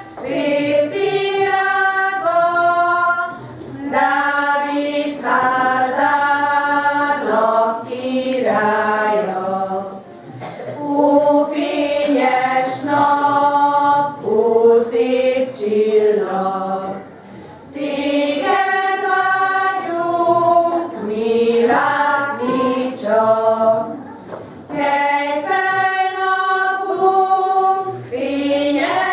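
Women's choir singing a slow melody in phrases separated by short breaths.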